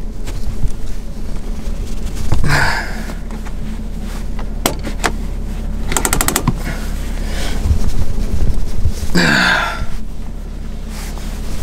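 Hands handling and fitting a carbon-fibre and Alcantara handbrake-lever cover: plastic rubbing and scraping noises, with a quick run of small clicks about six seconds in, over a steady low hum.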